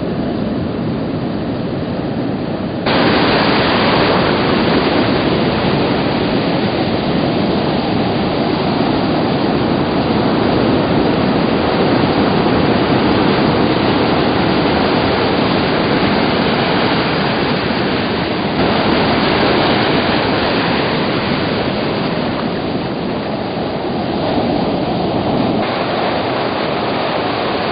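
Ocean surf breaking and washing ashore: a loud, steady rush of noise that jumps up abruptly about three seconds in.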